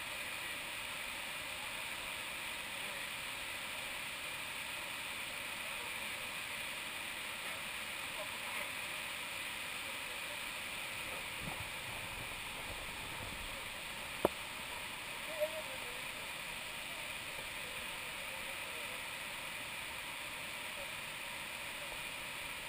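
Steady rush of river water cascading over the rocks, with a single sharp click about two-thirds of the way through.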